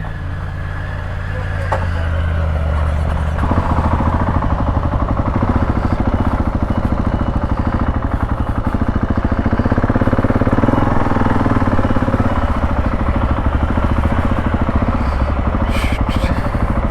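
Husqvarna 701 single-cylinder motorcycle engine running under way, with a fast, even pulse. It gets louder about three and a half seconds in and then holds steady.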